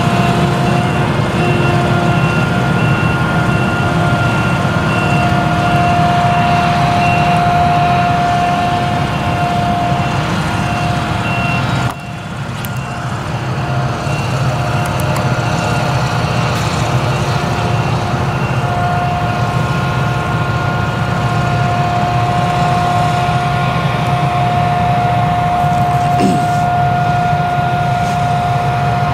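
Claas Jaguar 970 forage harvester with its MAN V8 engine running under load while chopping sorghum, a steady heavy engine sound with a constant high whine over it.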